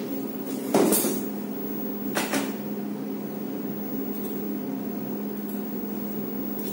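A steady electrical hum from the clinic's equipment, with two sudden noisy sounds, knocks or handling noises: a louder one about a second in and a shorter double one about two seconds in.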